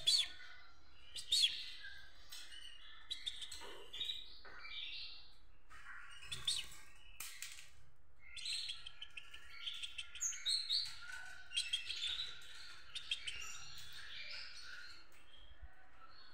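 European goldfinch singing: quick twittering phrases of high chirps, broken by short pauses.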